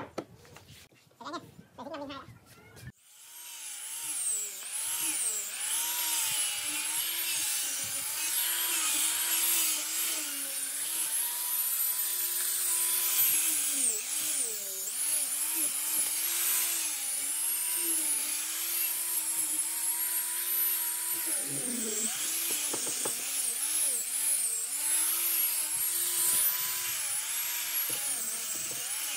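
A knock at the start, then from about three seconds in an electric angle grinder with a sanding disc runs steadily, sanding the wooden bench, its high motor whine wobbling and dipping in pitch as the disc is pressed into the wood.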